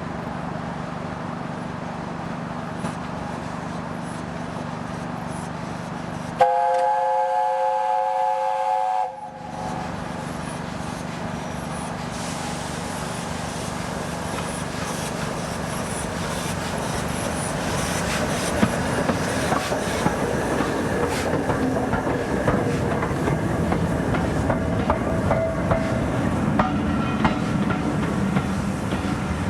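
Chime whistle of the steam locomotive Tornado (LNER Peppercorn A1 Pacific) sounding one steady multi-note chord for about two and a half seconds, some six seconds in. Afterwards the train's running noise and wheel clicks grow steadily louder as it approaches.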